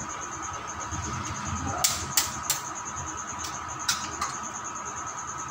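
Eggs being cracked: sharp taps of eggshell against the rim of a steel bowl, about six clicks between two and four seconds in.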